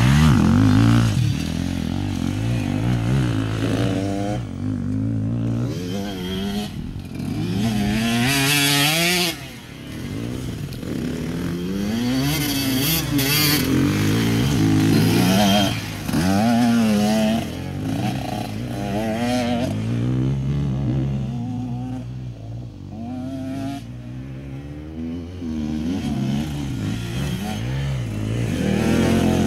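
KTM enduro dirt bike engine revving up and dropping off again and again as the rider accelerates and brakes through tight turns. The pitch rises and falls every second or two, and the sound grows fainter for a while as the bike moves away.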